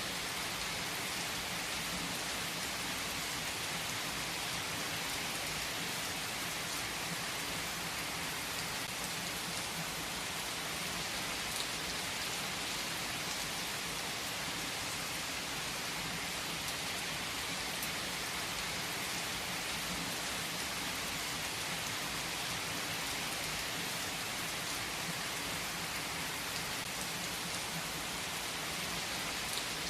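Steady, heavy rainfall: an even, unbroken hiss of rain on a surface.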